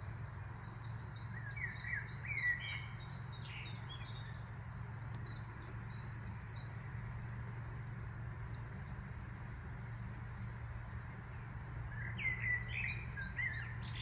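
Songbirds singing in the trees: two varied song phrases of about two seconds each, one near the start and one near the end, over a steady run of short high chirps repeated a few times a second. A low steady hum lies underneath.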